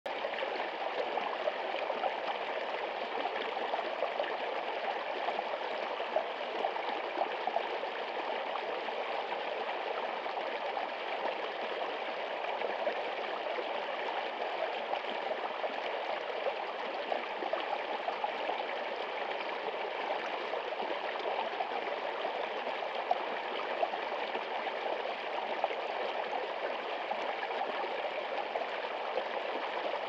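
Small stream rushing and splashing over a low rock step, a steady babble with scattered louder splashes.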